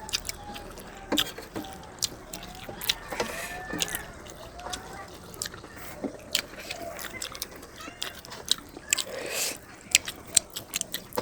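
Close-up eating sounds: chewing and lip smacks with many short, sharp mouth clicks, as rice and curry are eaten. A softer, longer wet sound comes about nine seconds in.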